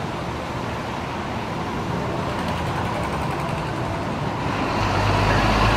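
Steady road traffic noise. A motor vehicle's engine grows louder near the end as it approaches.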